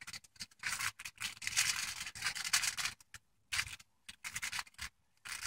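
Aluminium foil crinkling and rustling under hands as butter is rubbed into salmon fillets laid on it: irregular scrunching, busy for the first few seconds, then sparser.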